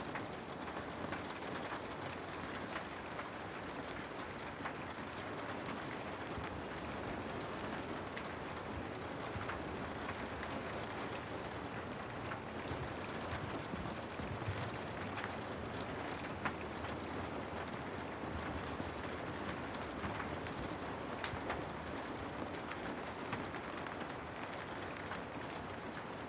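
Steady rain falling, an even hiss with scattered sharper drop ticks, one standing out about two-thirds of the way through.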